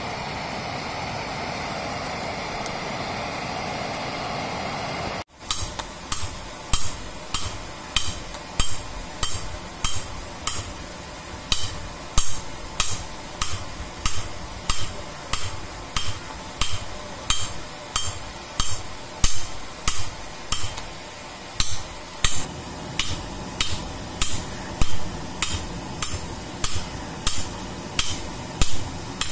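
A steady rushing noise while the rebar heats in the coal forge fire, cut off suddenly about five seconds in. Then a hand hammer strikes rebar on a steel anvil block, about one and a half to two ringing blows a second, as the rebar is forged into a chisel.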